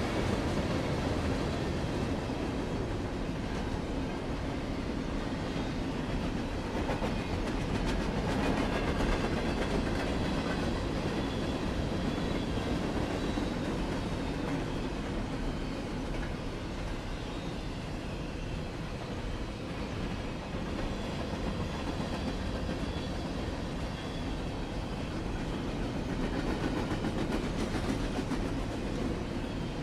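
Freight cars of a Norfolk Southern train rolling past: a steady rumble of steel wheels on rail, with clickety-clack as the wheels cross rail joints.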